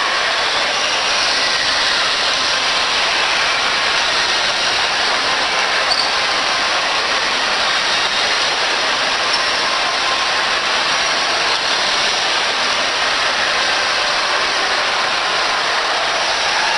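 Steady, even background din of a crowded shopping-mall hall, with no distinct events.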